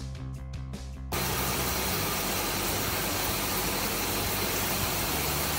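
Music for about the first second, then a sudden cut to the steady hiss and hum of a CNC vertical milling machine at work, milling out a hole in spiral passes.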